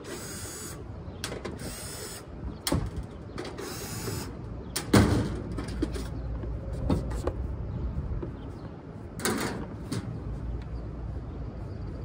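Cordless drill/driver whirring in short bursts as it backs out the sheet-metal screws of a rooftop AC unit's access panel, with a sharp metal clank about five seconds in as the panel is handled.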